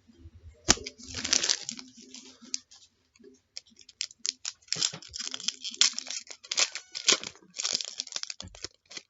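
A trading-card pack wrapper being torn open and crinkled in several bursts of tearing and rustling, with sharp clicks of cards being handled.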